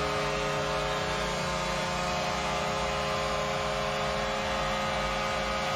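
Washington Capitals' arena goal horn sounding one long, steady blast: a deep, unwavering horn chord rich in overtones.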